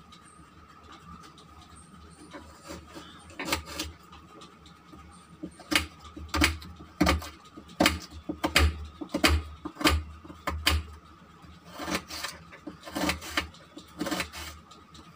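Knife cutting an onion on a board: a series of sharp, irregular knocks, about one or two a second, beginning a few seconds in after a quieter stretch of handling.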